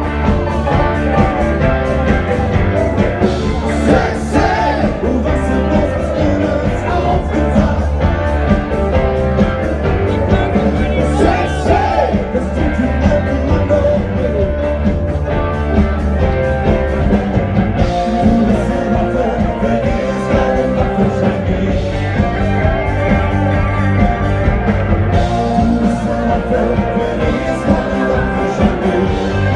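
Loud music with singing over a steady beat and a heavy bass line.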